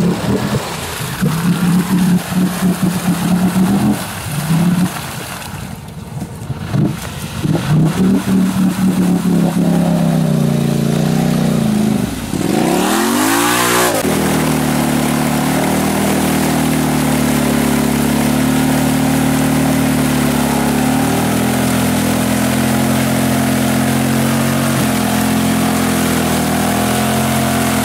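ATV engine revving up and down in short bursts, then after a brief dip about halfway held at steady high revs, its tyres spinning in deep mud while the quad is stuck.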